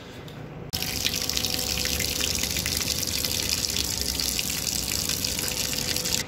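Tap water running in a strong stream into a plastic bucket of clothes being filled for hand-washing laundry. A steady splashing hiss that starts suddenly under a second in.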